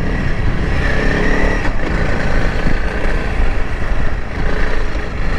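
Honda CRF300L Rally's single-cylinder engine running steadily while the motorcycle rides over soft sand, with a dense low rumble throughout.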